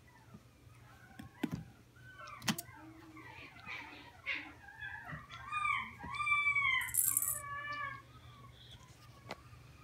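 Chihuahua puppies whining and yipping in short, high, rising-and-falling cries, loudest after about five seconds. A jingle ball's bell jangles about seven seconds in, and toys knock a few times.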